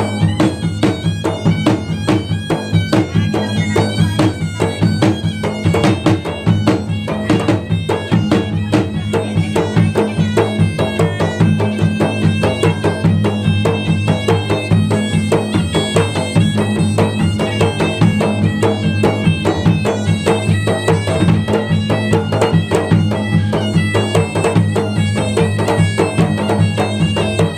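Bugis-Makassar gendang ensemble playing: gendang drums beaten by hand in a fast, dense rhythm, a large bronze hanging gong struck over them, and a shrill reed pipe, the puik-puik, carrying a continuous melody.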